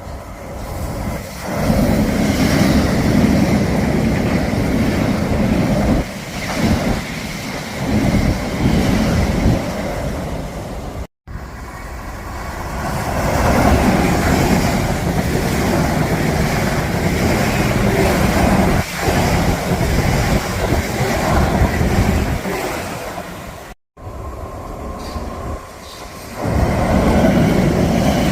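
Trains running past on the line, a steady rumble of wheels on track. It comes in three sections split by sudden cuts about a third and four-fifths of the way through.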